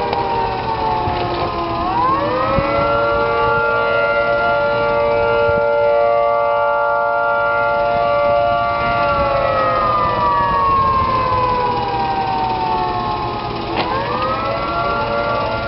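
Outdoor warning sirens, with a Federal Signal Thunderbolt 1003 close by, sounding a wail: the pitch falls, rises again about two seconds in and holds steady for several seconds, slides slowly down, then winds back up near the end.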